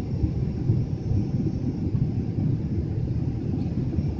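Steady low rumble of a Boeing 777's engines and airflow heard inside the passenger cabin, with the airliner in its climb after takeoff.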